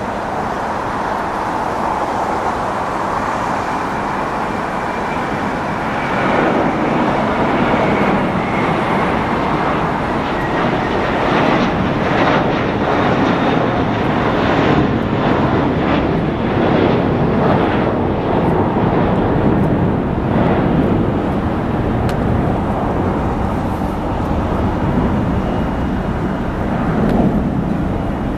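Airbus A321-231's two IAE V2500 turbofan engines at takeoff thrust as the jet lifts off and climbs away: a loud, continuous roar. A faint high whine slides down in pitch over the first several seconds, and the roar grows louder about six seconds in.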